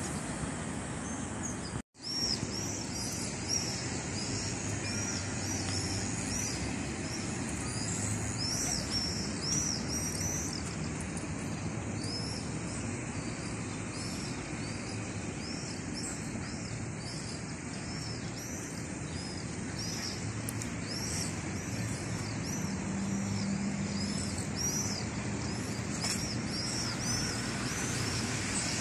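Small birds chirping in quick, high, thin notes, over a steady rumble of distant traffic.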